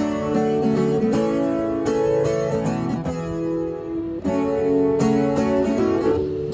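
Acoustic guitar strumming chords steadily through an instrumental break in a song.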